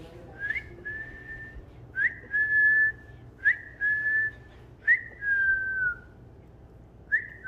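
Whistling: a high note repeated about every one and a half seconds, each one opening with a quick upward flick and then held, the later ones sliding slightly down in pitch.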